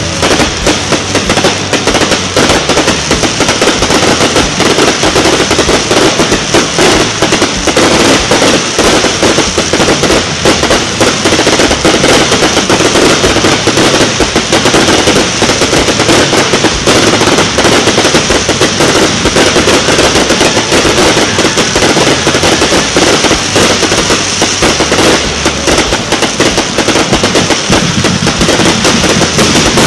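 Aerial fireworks crackling in a dense, continuous rattle of rapid pops.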